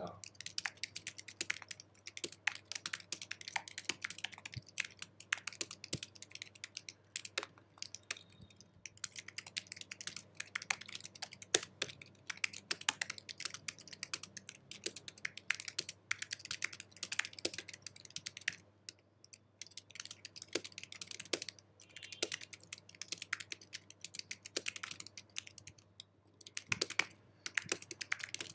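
Typing on an Apple keyboard: a fast, continuous run of key clicks, broken by two short pauses near the two-thirds mark and shortly before the end.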